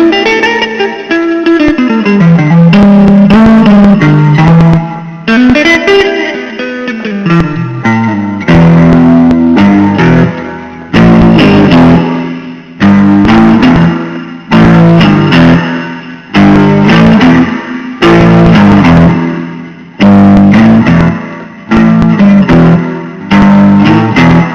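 Blues song instrumental break: electric guitar playing over a bass line and a steady beat, with no singing.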